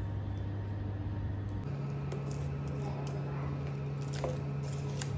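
Fingers picking at and peeling clear plastic shrink wrap off a small cardboard box, with scattered crinkles and scratches. A steady low hum runs underneath and steps up in pitch about one and a half seconds in.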